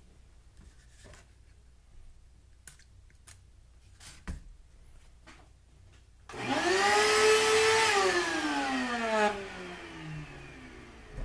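A few faint handling clicks, then about six seconds in a shop vac's motor is switched on and spins up with a rising whine. It runs for a couple of seconds and then winds down with a falling whine as it is switched off. It is blowing air into the capped-off exhaust manifold to find a leak at the collector.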